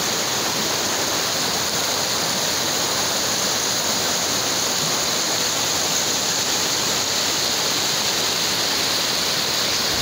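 Shallow river rapids: fast water running over rocks in a steady, unbroken rush.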